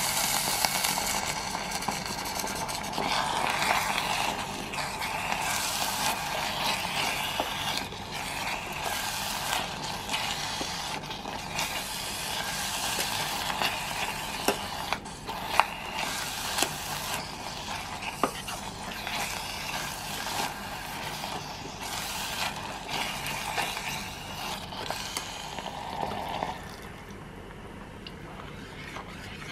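Metal spoon stirring and scraping a wet paste around a stainless steel pot, with a few sharp clinks against the pot's side. The stirring gets quieter near the end.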